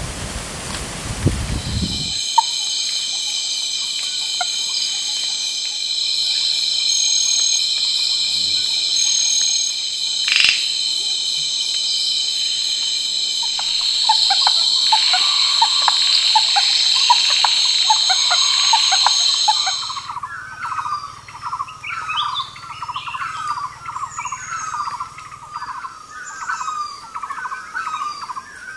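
Night forest insect chorus: many insects trilling in steady high-pitched tones. It opens with a second or two of rushing noise. About two-thirds of the way in, the chorus drops away and a fast, repeated series of short chirping animal calls takes over.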